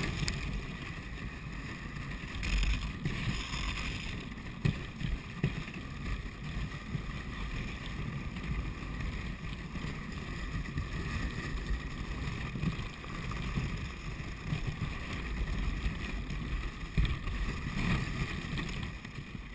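Dog sled running over snow: the runners hiss and scrape steadily while wind buffets the camera microphone, with irregular knocks and a few harder bumps from the sled.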